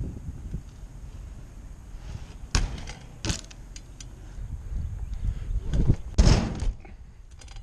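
BMX bike riding over concrete, with a steady low rumble and several sharp clanks and thuds from the bike hitting the ground. There are three short knocks, then the loudest, longer impact a little over six seconds in.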